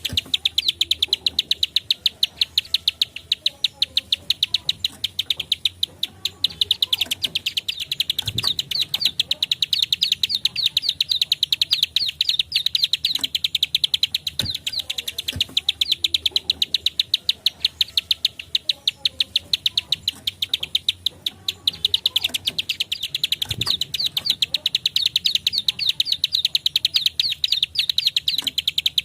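Plain prinia (prenjak klik / ciblek sawah) calling in a rapid, unbroken run of sharp clicking notes, many a second, with a couple of brief slackenings.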